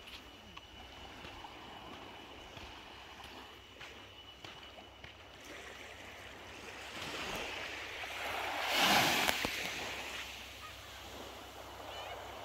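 Small waves washing up on a sandy shore, a soft hiss that swells to one louder wash about two-thirds of the way through and then ebbs.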